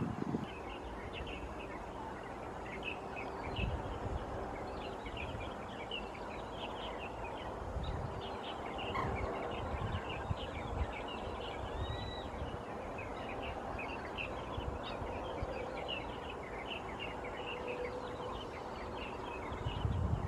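Many small birds chirping, with short, high calls that come thick and fast and overlap, over a steady outdoor hiss. A few low rumbles of wind on the microphone come and go.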